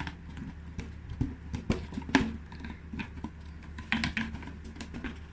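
Irregular light clicks, taps and rustles of hands working a plastic balloon holder and ribbon against a balloon, over a faint steady low hum.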